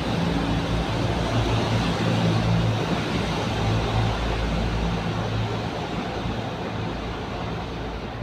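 A low mechanical hum over a steady rushing noise, louder in the first half and easing off after about five seconds.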